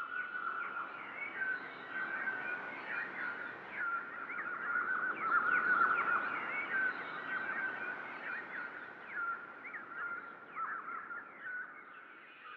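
A flock of small birds chirping together: a dense chorus of many short, quick chirps that swell toward the middle and thin out near the end.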